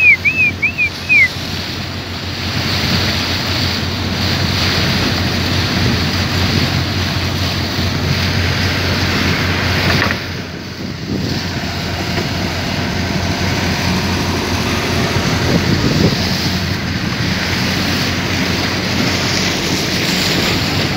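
Steady rush of water and wind against the microphone from a moving fishing boat, over a low steady engine hum. A quick run of high arching whistled chirps comes in the first second.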